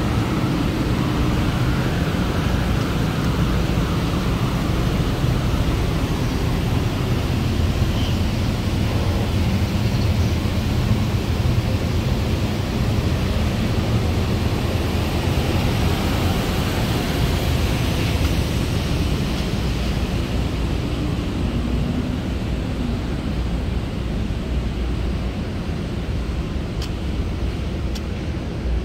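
Steady road traffic noise: a continuous deep wash without distinct events, easing slightly in the last few seconds.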